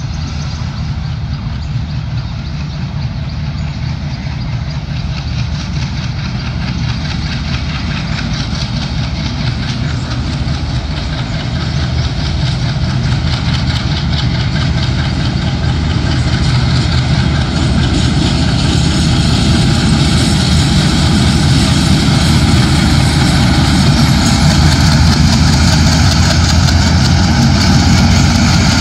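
Diesel-electric locomotive 6520 pulling a train away under power, its engine in a high throttle notch. The engine note is steady and grows louder as the locomotive comes closer.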